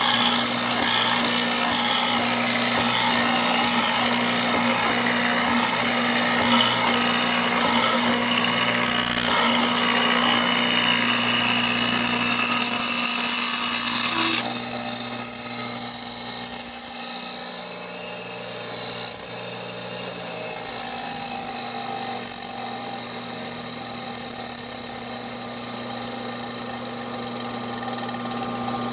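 J.A. Fay & Egan drill press fitted with a hollow-chisel mortising attachment, running with a steady motor hum while its square chisel and auger bore into a wooden board with a rasping cutting noise. About halfway through, the cutting noise drops away and the machine runs on with just its hum.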